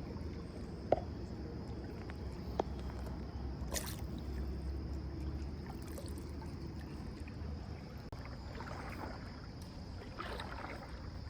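Creek water trickling and gurgling under a low rumble, with a few small knocks and a faint steady high tone.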